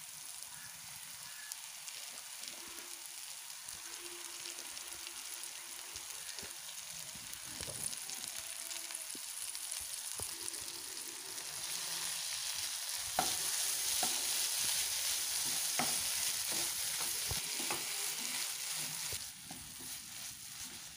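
Onion-tomato masala sizzling in oil in a frying pan. About halfway through, the washed dried anchovies go in and the sizzle gets louder while they are stirred in with a spatula, which scrapes and clicks against the pan. The sizzle eases again near the end.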